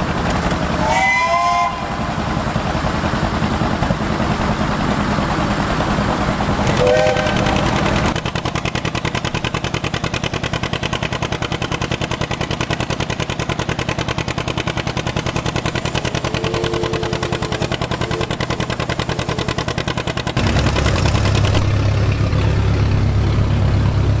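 Antique tractor engines running steadily in a series of short clips, with two short whistle blasts, about a second in and about seven seconds in. Near the end a louder, deeper-sounding engine takes over.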